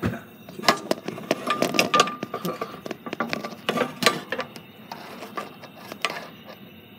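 A phone tripod being handled and set back up right at the microphone: irregular clicks, knocks and rattling, thickest in the first four seconds and thinning out toward the end.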